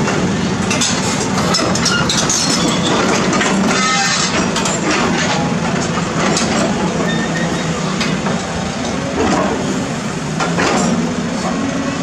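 Caterpillar 320D excavator's diesel engine running steadily as its steel bucket digs and scrapes through dirt and broken concrete. Repeated clinks and cracks of rubble and slab pieces knock against the bucket and each other.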